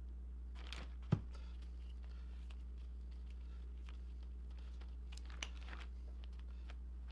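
Plastic sheeting rustling and crinkling under gloved hands while wood strips are glued up on a plastic-covered bench, with a sharp knock about a second in and a smaller click later, over a steady low hum.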